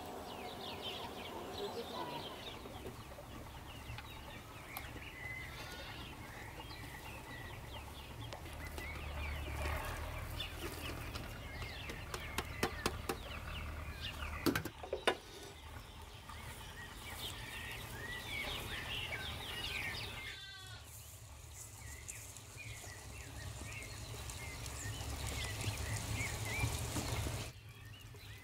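Rural outdoor ambience: small birds chirping throughout, with goats bleating. A cluster of sharp clicks and scrapes comes about halfway through.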